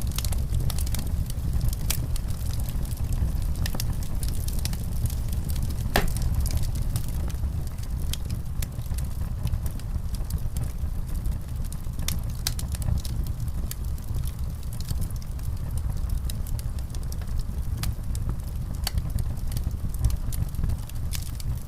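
Wood fire burning in a fireplace: a steady low rumble with scattered crackles and pops, one sharper pop about six seconds in.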